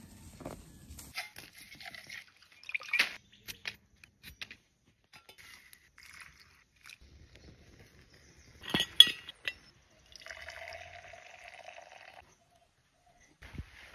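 Water poured and dripping into a steel mug, then liquid poured into a glass, among scattered clicks and handling noises. The loudest moment is a sharp cluster of clicks about nine seconds in.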